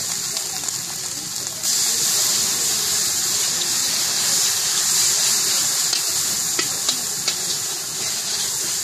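Batter-coated vegetable slices deep-frying in hot oil in an iron wok: a steady, loud sizzle that grows suddenly louder about two seconds in, with a few sharp pops of spitting oil later on.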